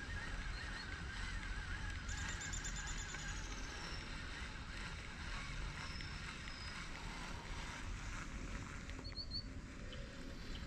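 Faint outdoor ambience of distant bird calls: a wavering call that fades after about three seconds, a short high trill about two seconds in, and brief chirps near the end, over a low rumble of wind on the microphone.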